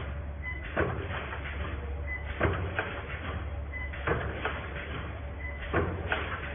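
Automatic wire mesh welding machine running through its cycle: a sharp clunk about every second and a half, four times, each just after a brief high tone, over a steady low hum.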